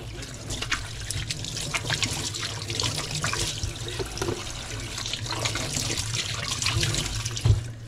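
Kitchen tap running into a stainless-steel sink, water splashing as a knife and then hands are rinsed under it, with a knock near the end.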